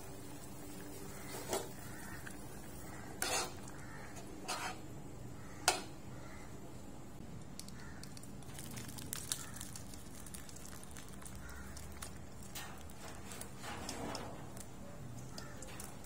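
Scattered clinks and knocks of a stainless steel pot and utensils, about seven in all, the sharpest about six seconds in, with soupy broth poured from the pot into a ceramic bowl.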